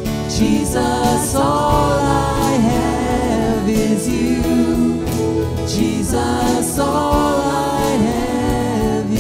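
Live contemporary Christian worship song: a man and two women singing together into microphones over a band accompaniment.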